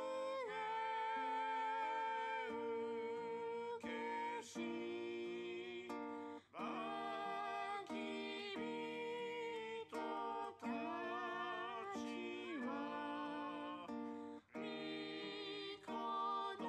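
Recorded song playing back: a voice singing held, wavering notes over plucked acoustic guitar, with short breaks between phrases.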